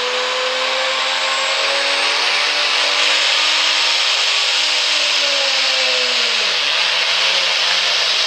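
Diesel pulling pickup held at high revs at the start line, its turbo spooled up with a loud, rushing hiss. The engine pitch climbs slowly, then drops sharply about six and a half seconds in and holds lower.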